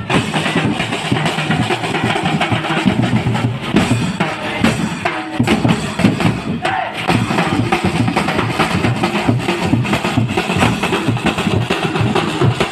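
Marching band drums, bass drums and snare drums, beating a steady march rhythm as the band walks in a street procession.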